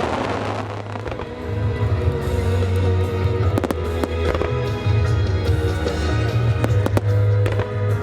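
Aerial firework shells bursting with several sharp bangs over loud recorded music that has a deep, sustained bass.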